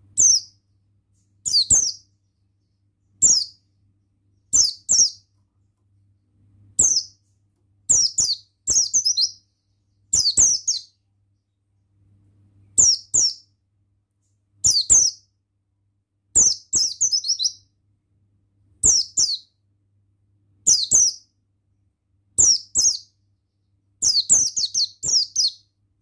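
A buxtoni white-eye (pleci) singing: short, high, rapid chirping phrases repeated every second or two, some coming in quick pairs or runs of three.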